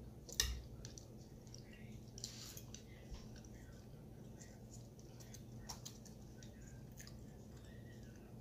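Metal knife and fork clicking and scraping against a ceramic plate while chicken is cut, with one sharp clink about half a second in and lighter clicks after.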